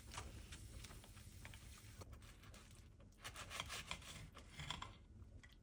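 Faint rasping of a knife sawing through a pan-toasted filled wrap, in a few short scratchy strokes that are strongest near the end.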